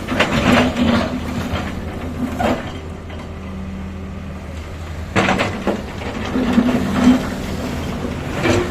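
Heavy diesel machine, an excavator, running steadily, with repeated bursts of clattering and scraping as it works.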